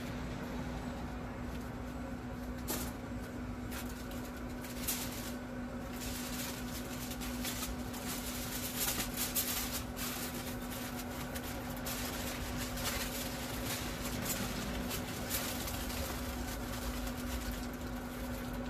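Heavy-duty aluminium foil crinkling and rustling in irregular crackles as it is folded and pressed around a brisket, over a steady low hum.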